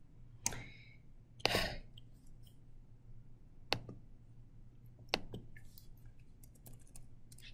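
Scattered clicks of a computer mouse and keyboard. There are a couple of louder clicks in the first two seconds, a few single ones after that, and a quick run of light taps near the end. A faint steady low hum runs underneath.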